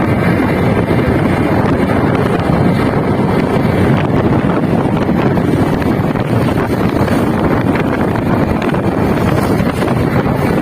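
Steady wind rushing over the microphone of a moving motorcycle, with the motorcycle's engine and road noise running underneath.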